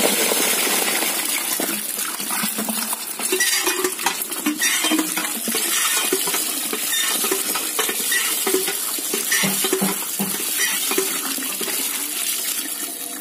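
Water and live fish, climbing perch and stinging catfish, being poured from a plastic pot into a plastic crate: steady splashing and gushing water with many small knocks and slaps as the fish land against the plastic and each other.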